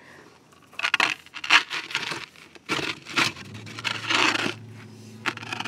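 Wooden bread peel scraping across the floor of a cob oven in a series of short strokes as it is slid under the loaves, with a couple of light knocks near the end.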